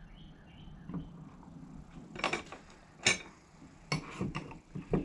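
Metal tools and hydraulic valve parts being handled on a steel workbench: a series of separate sharp metallic clinks and knocks, roughly one a second.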